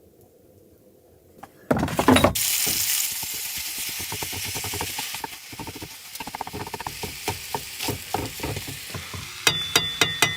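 Food frying in a hot pan: a loud sizzle sets in suddenly about two seconds in, then slowly fades into crackling and spitting, with a few sharp clicks near the end.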